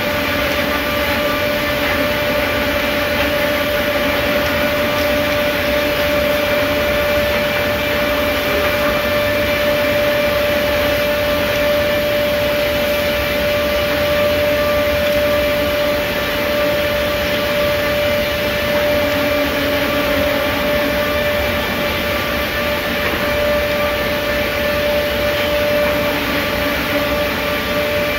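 PRINZ CUTSTAR 11kW package trimming station's saw unit running steadily, a constant mechanical whine over a noisy machine bed as it works through a stack of timber boards.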